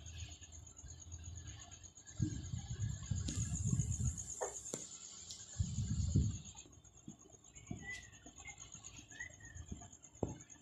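Handling noise from fabric being moved about by hand: rustling with low rumbles on the microphone, in two stretches about two and six seconds in. A faint high steady whine runs underneath, and two faint short chirps come near the end.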